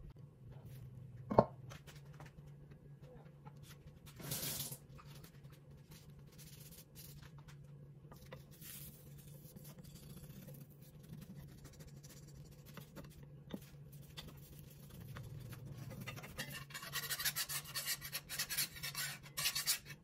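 A slotted spatula scraping and tapping rapidly against a nonstick frying pan while folding an omelette, over a low steady hum. A single sharp knock comes about a second in, and a short rush of noise around four seconds in.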